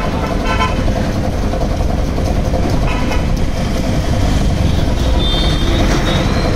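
Single-piston air compressor running steadily, its pump driven by a 0.5 hp Crompton single-phase electric motor, with a fast, even low pulsing from the piston strokes.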